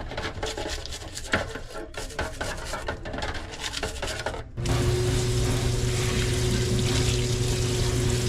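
Irregular rubbing and scraping of hand work on a bicycle. About halfway through, a louder steady machine hum with hiss starts abruptly and runs on.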